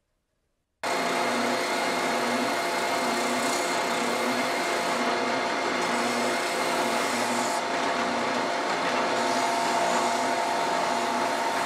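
Electric power sander running steadily while shaping wood: a constant motor whine over a wide hiss. It starts abruptly about a second in.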